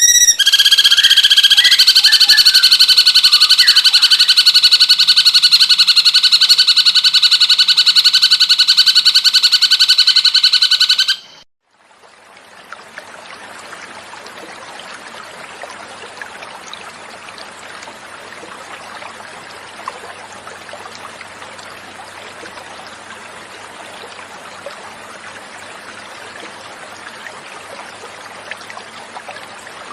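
Cucak cungkok bird song: a loud, rapid, high-pitched buzzing trill held unbroken for about eleven seconds, cutting off suddenly. It is followed by a much quieter, steady hiss of flowing water.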